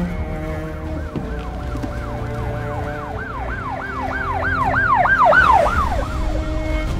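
Emergency vehicle siren wailing up and down in quick sweeps, about three a second, growing louder to a peak about five and a half seconds in and then stopping. Sustained background music tones run underneath.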